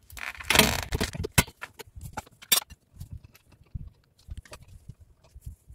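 Metal clinks and knocks from working a hydraulic floor jack and a car wheel during a tyre change: a scraping rush in the first second, then two sharp clinks and scattered lighter clicks.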